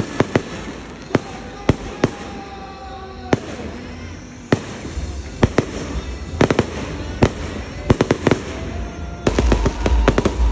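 Aerial fireworks going off: sharp bangs at irregular intervals, coming thicker after about six seconds, then a dense, continuous barrage with a deep rumble starting near the end.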